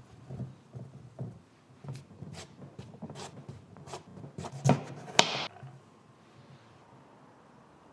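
Small knocks, taps and light clatter of café work, with two sharper knocks about four and a half and five seconds in, the second followed by a short hiss; after about six seconds only a low room hum remains.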